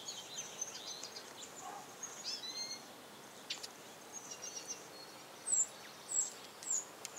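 Small songbirds chirping and twittering at high pitch, with three louder, short, falling chirps close together near the end.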